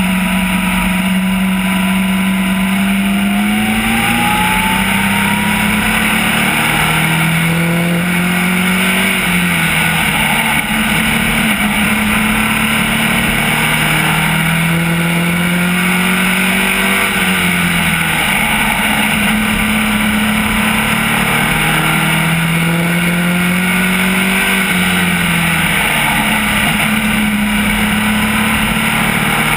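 SK Light modified race car's engine at racing speed, heard from inside the cockpit. Its pitch climbs steadily along each straight and drops sharply when the driver lifts for the turns, about every eight seconds, over steady road and wind noise.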